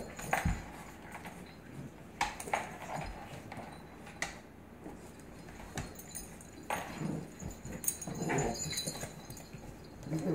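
A pit bull puppy and an adult pit bull play-fighting: scattered small dog vocal sounds mixed with scuffling, and short sharp scrapes and clicks of paws on a hardwood floor.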